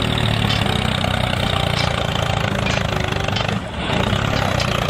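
Steady engine rumble, like a diesel idling, as a toy remote-control tracked excavator drives off across sand, with a brief dip about three and a half seconds in.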